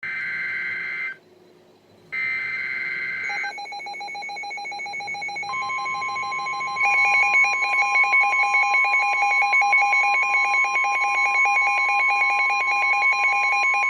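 Emergency Alert System alert signal announcing a high wind warning. It opens with two short bursts of warbling digital header data, then a steady alert tone starts about three and a half seconds in, a second tone joins about two seconds later, and from about seven seconds the sound becomes a rapid, even pulsing beep.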